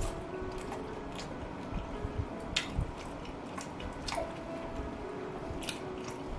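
Close-up eating of fried chicken: chewing and wet mouth smacks, with a few sharp clicks and squishes as gloved hands pull a drumstick and tear a wing apart.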